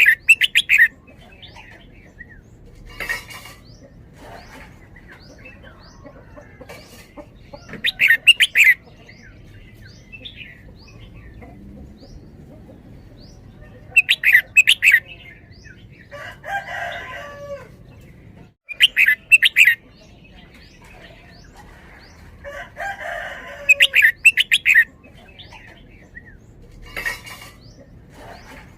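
Red-whiskered bulbul singing in the doubled, repeated-phrase style: five loud bursts of quick, bubbling notes about five or six seconds apart, with soft chirps in between.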